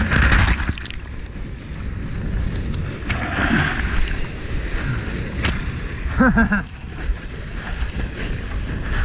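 Wind buffeting the microphone of a surfer's point-of-view camera and whitewater rushing while a small wave is ridden, with a brief vocal whoop about six seconds in.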